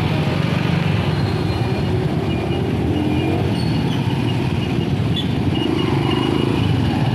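Steady engine and road noise of a moving motor vehicle, a continuous low rumble with no pauses.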